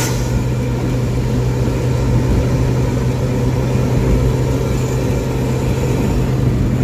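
Steady low drone of a bus engine with road noise at cruising speed, holding an even pitch without revving.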